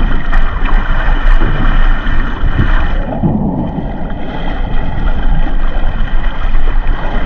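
Wind buffeting the microphone over a boat's engine running steadily, with a loud rumbling low end throughout.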